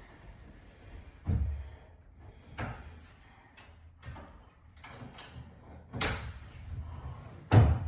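Bifold closet doors being moved and folded closed on their track, giving four knocks and bumps as the panels meet, the loudest near the end.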